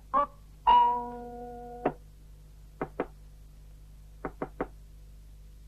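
A few plucked string notes, the last one held for about a second before it stops short. Then knuckles knock on a wooden door: two knocks, a pause, and three quicker knocks.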